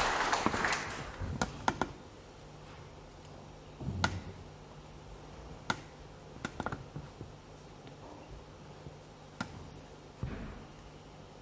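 Audience applause dying away, then scattered sharp clicks and a couple of low knocks over a steady low amplifier hum: guitar effect-pedal footswitches clicking and the stool and stage creaking as the guitarist gets ready to play.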